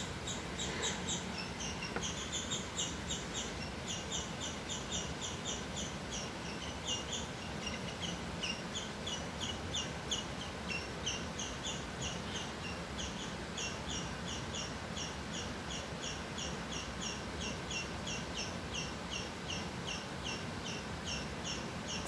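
Small animal chirping steadily: short high chirps, about three a second, repeated evenly without a break.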